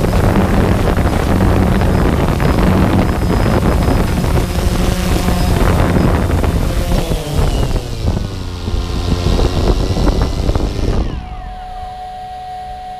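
DJI Phantom 2 quadcopter's motors and propellers, heard from on board, running loud with a rush of air as it flies low and descends; the motor pitch glides down and back up, and about eleven seconds in it touches down and the sound drops to a steady, quieter hum of the motors idling.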